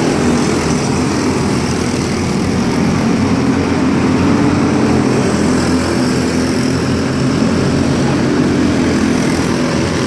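Several small microstock race car engines running together as the cars circle a dirt oval, a steady loud drone with no break.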